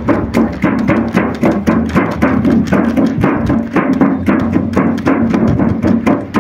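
Music of fast, rhythmic drum strikes, about five or six a second, over a steady low drone.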